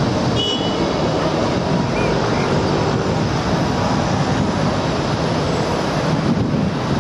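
Steady city traffic noise as a hybrid double-decker bus (a New Routemaster) drives past through a junction, its engine and tyre noise holding at an even level.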